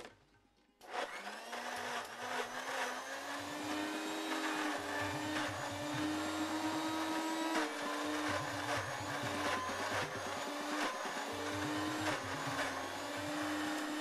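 Electric countertop blender switched on about a second in, its motor whine rising as it spins up and then running steadily as it purées avocado.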